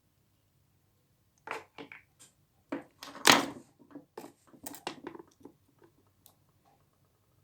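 A quick series of clicks and knocks of hard objects being handled and set down, with one loud knock a little over three seconds in.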